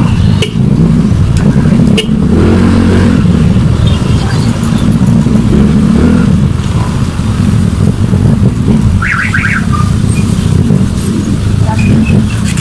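Motorcycle engine running steadily at low speed in slow street traffic, with crowd chatter around it. A short burst of rapid high beeps about nine seconds in.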